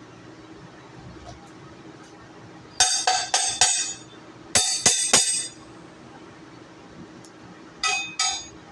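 Steel struck repeatedly with a hammer, each blow ringing: four quick blows, then three more, then two near the end.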